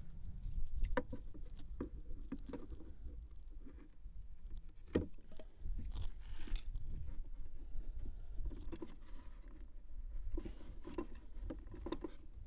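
Handling sounds of a rubber water hose being worked onto the plastic float-valve fitting of a cattle waterer and a hose clamp being fitted: scattered small clicks and rubbing, one sharper click about five seconds in, over a steady low rumble.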